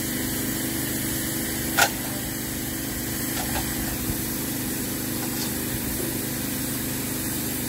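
A small motor running steadily with a constant hum and hiss, and one sharp knock about two seconds in and a faint tick about four seconds in.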